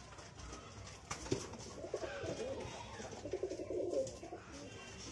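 Domestic pigeons cooing, one bout about two seconds in and another near four seconds. A single sharp knock just over a second in.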